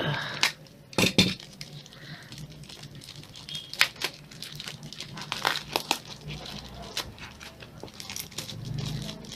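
Hard plastic packaging of a speed cube being cut and pried open by hand: scattered sharp clicks, snaps and crinkles, the loudest about a second in.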